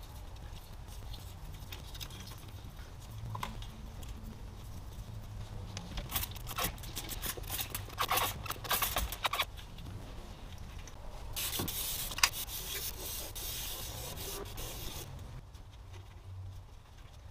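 Hand work on an engine bay: gloves and rags rubbing and scraping around the oil filter housing, with scattered light knocks. Two stretches of spray hiss, a run of quick strokes in the middle and a longer hiss later, from a spray bottle of cleaner used on the oily area.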